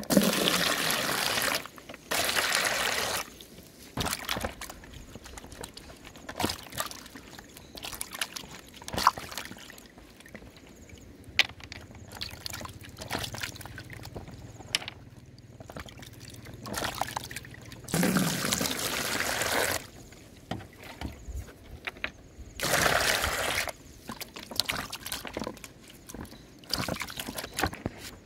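Water pouring and splashing into a plastic basin in several bursts of a second or two, with quieter sloshing and dripping in between as a peeled taro corm is rubbed and washed by hand in the water.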